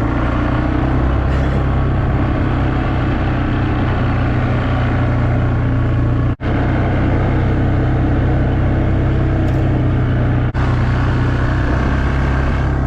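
Vehicle engine running steadily while driving along a rough track, a loud low drone with road and body noise over it. The sound briefly cuts out twice, about halfway through and near the end.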